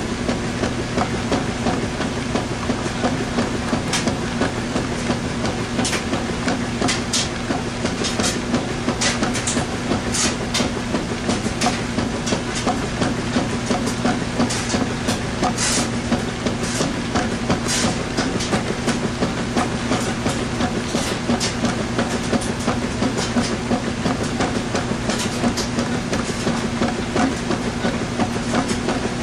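Washing machine running with a load of towels: a steady motor hum with frequent, irregular clicks and knocks from the turning drum.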